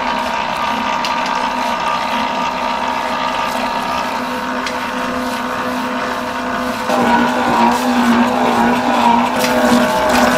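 Commercial dough mixer running steadily, its motor humming as the dough hook churns flour for twisted-doughnut dough. About seven seconds in it gets louder and rougher as liquid is poured into the flour.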